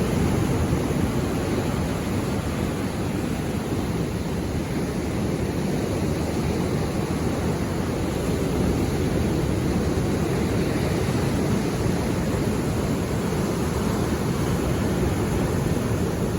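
Sea waves breaking and washing on the shore: a steady, deep wash of surf that swells and eases only gently.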